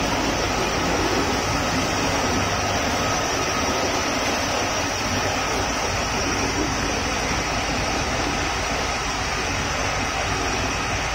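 Tea-processing machinery, a rotating metal drum fed by a chute, running with a loud, steady drone.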